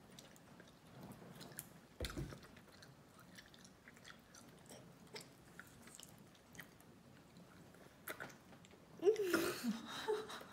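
Faint mouth sounds of chewing candy, with scattered small clicks and a sharp thump about two seconds in. Near the end comes a louder, noisy burst with a short voice-like sound.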